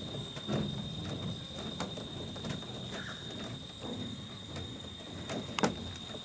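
Steady high-pitched insect drone, with scattered clicks and knocks and one sharp click about five and a half seconds in.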